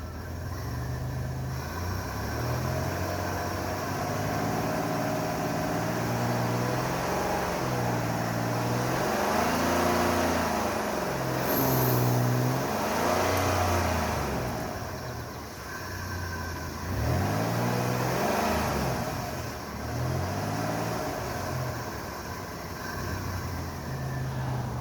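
1998 Dodge Grand Caravan engine revved up and falling back several times as the driver tries to make the van move. The blown transmission barely drives it. The revs are highest in the middle and again a little later.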